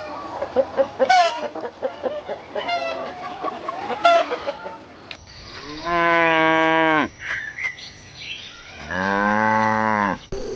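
A flock of poultry calling in a jumble of short notes, then two long, steady livestock calls of about a second each, the second one lower-pitched.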